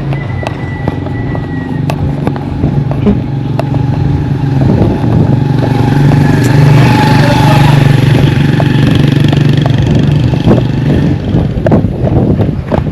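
A motor vehicle's engine running as it approaches and passes, growing louder to a peak midway and fading toward the end.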